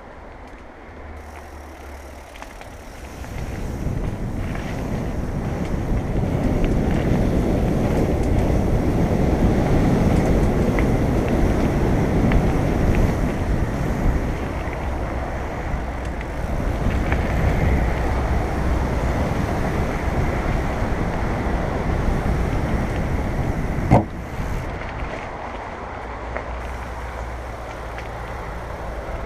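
Wind rushing over the microphone and tyres rattling over a dirt trail as a mountain bike runs downhill, building up about three seconds in. A single sharp knock about twenty-four seconds in, after which the rush is lower.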